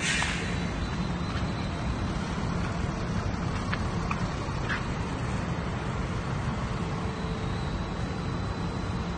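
ZPMC quayside container crane running with a steady mechanical hum as it hoists a shipping container off a truck trailer. A short hiss comes right at the start, and a few faint clicks about four seconds in.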